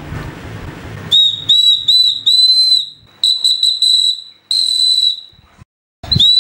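Small homemade whistle made from the metal of an old battery, blown in a run of short toots and a few longer blasts, all at one high pitch, each with a slight upward slide as it starts. The blowing begins about a second in, and after a short break another blast comes near the end.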